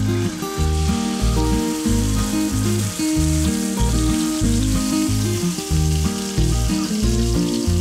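Boneless pork loin searing in a hot frying pan, a steady sizzle. Background music with a rhythmic bass line plays over it and is the loudest sound.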